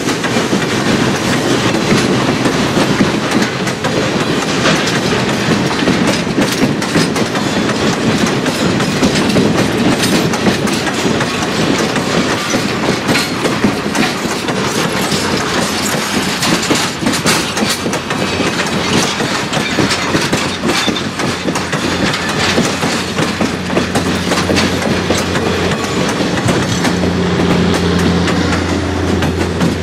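Passenger cars of a steam-hauled train rolling past, a steady rumble with wheels clicking over the rail. Near the end the steady hum of a diesel helper locomotive pushing at the rear of the train grows in.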